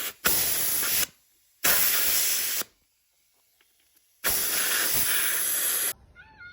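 Compressed air hissing in four sharp-edged bursts, a brief one at the start, two of about a second each, and a longer one near the end: air being let into a small dirt bike tire through its valve stem.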